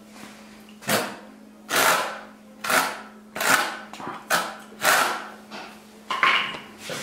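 Notched trowel scraping cement tile adhesive onto the back of a decorative cement brick in repeated strokes: about seven short, sharp scrapes less than a second apart, over a faint steady hum.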